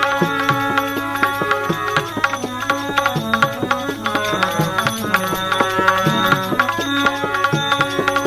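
Instrumental passage of a Gujarati bhajan without singing: tabla playing a busy rhythm over a held melodic line and a steady low drone.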